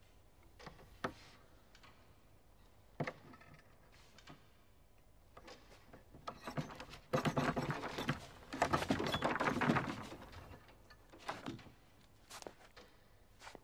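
Objects being handled on a small table: a few separate knocks and clicks, then in the middle about four seconds of rapid clattering and rustling.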